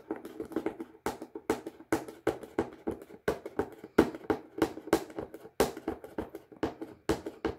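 Hands picking at and opening a sealed cardboard product box: an irregular run of sharp clicks and crackles, several a second.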